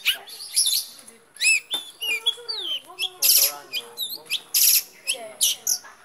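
Caged long-tailed shrike (cendet) singing: a varied run of quick chirps and whistled slurs, broken by loud harsh rasping notes about three and four and a half seconds in.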